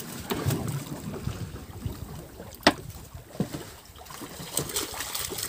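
Wind buffeting the microphone on a small fishing boat, an uneven low rumble with no engine running, and one sharp knock about two and a half seconds in.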